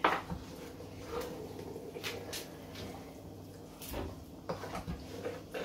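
Wooden spatula stirring a large aluminium pot of thick vegetable soup, knocking irregularly against the pot, about six knocks, the loudest at the very start, over a low steady hum.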